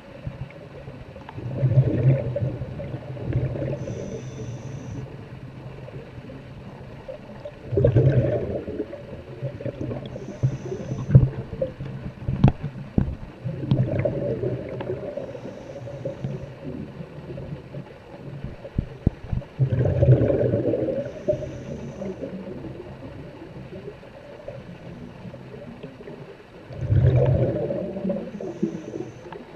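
Underwater bubbling of a diver's exhaled breath: a gurgling rush about every six seconds, with a brief faint hiss between each and a few sharp clicks around the middle.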